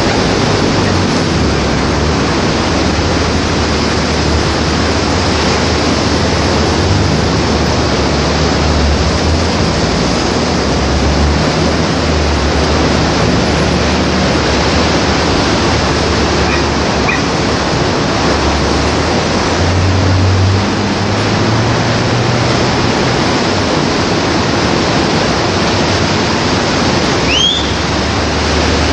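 Steady rushing noise of the sea breaking on a beach, with a low engine rumble from cars passing on the seafront road that swells and fades. A short, high, rising call comes near the end.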